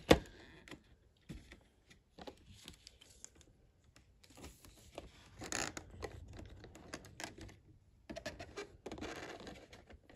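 Clear plastic blister packaging clicking and crinkling as a model locomotive is eased out of its tray by hand: a sharp click at the start, then scattered light clicks and rustles.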